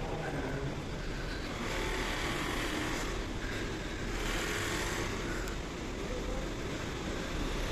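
Steady low rumble and hiss with faint voices murmuring in the background.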